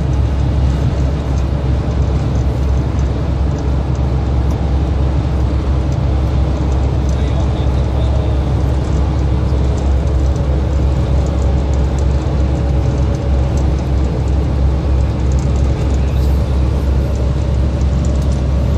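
Steady low drone of a lorry's engine and tyres at motorway speed, heard from inside the cab, with a faint steady whine over it.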